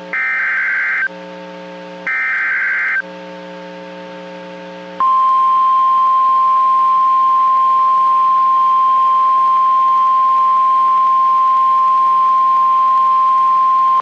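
NOAA Weather Radio Emergency Alert System alert received on a radio. It opens with two SAME header data bursts, short buzzy digital squawks about a second long and a second apart, with a low hum between them. About five seconds in, the steady single-pitch 1050 Hz weather radio warning tone starts and holds for about nine seconds, signalling a warning such as a severe thunderstorm warning.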